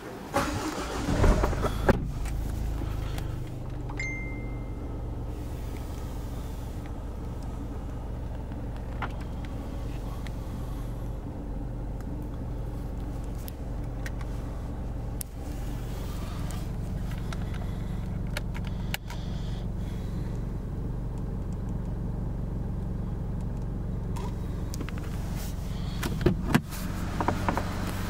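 A Jaguar car's engine starts about a second in and then idles steadily. A short high beep sounds about four seconds in.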